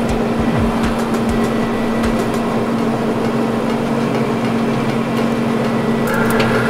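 Pellet grill's fan and auger motor running with a steady hum, the grill turned up high while the auger feeds pellets into the empty fire pot. A few light clicks sound over it, two of them about six seconds in.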